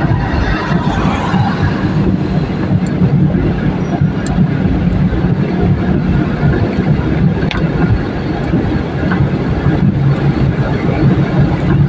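Steady cabin noise of a car driving on a rain-wet highway: a low engine and road drone, with tyres running on wet tarmac.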